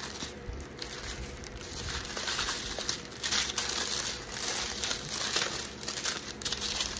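Small plastic bags of diamond painting drills crinkling and rustling irregularly as they are handled and sorted.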